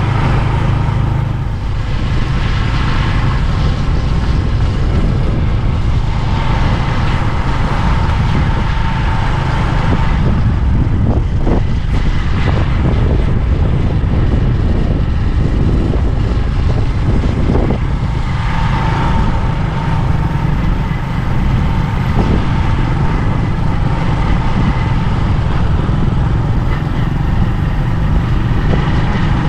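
Steady rumbling noise of a moving road vehicle, with a few brief knocks about eleven to twelve seconds in.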